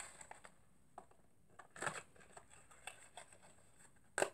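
Paper and packaging handled by hand: scattered soft rustles and crinkles, with a louder sharp crackle near the end.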